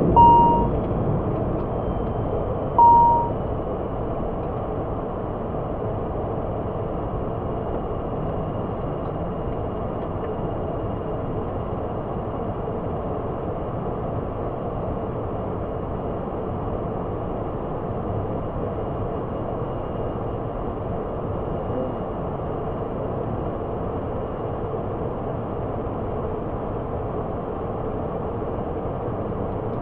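ATR 72-600 cockpit on the ground: steady noise of the turboprop engines and air systems running. Two short electronic beeps sound in the first three seconds.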